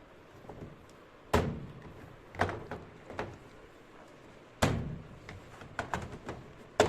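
Irregular sharp knocks and thuds, about six of them, from parts of a top-load washing machine being handled and fitted back in place during reassembly.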